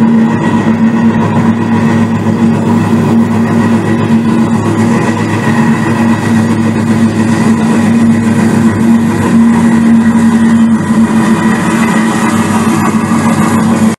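Model train running on the layout: a steady engine-like drone with a constant hum over the rumble of the cars rolling on the track.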